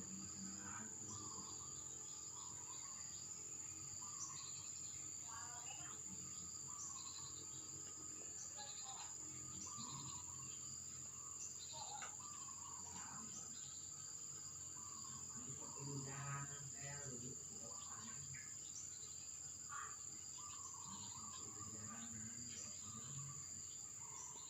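Faint steady shrill of crickets or other insects, with scattered short bird chirps and trills throughout.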